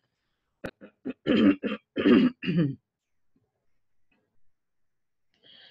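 A woman clearing her throat: a sharp click, two short catches, then three louder rasping throat-clearings over about two seconds.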